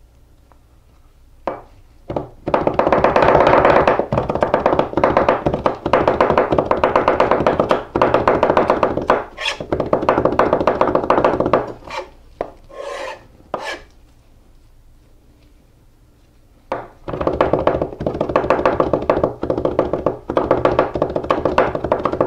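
Santoku knife rapidly mincing garlic on a plastic cutting board: two long runs of fast, even chopping strokes, with a pause between them broken by a few separate strokes.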